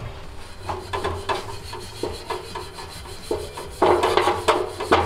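Green abrasive scouring pad scrubbed back and forth on a copper water pipe, about three strokes a second, getting louder in the last second or so. The pipe is being cleaned bright ready for tin soldering.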